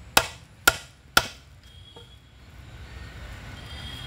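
Bantam rooster pecking at hard ground: three sharp taps about half a second apart, then a fainter one about two seconds in.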